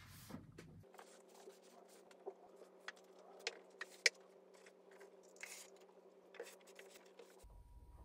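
Books being handled at a bookshelf: scattered light knocks, taps and scrapes as books are pulled from and set back on the shelves, with one sharper knock about four seconds in.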